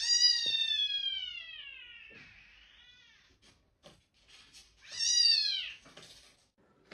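A domestic cat meowing twice: one long, drawn-out meow that falls in pitch, then a shorter meow about five seconds in.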